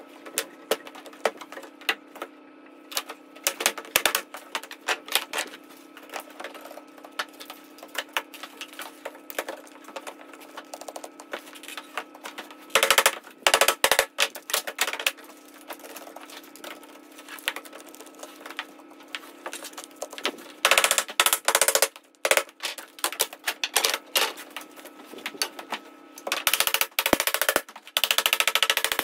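Irwin Quick-Grip bar clamps being ratcheted and released, with quick runs of clicks and knocks, while lead sheet is handled and pressed over a wooden roll. Louder scraping, rubbing bursts come about halfway through and twice more in the last third. A steady hum runs under the first two-thirds.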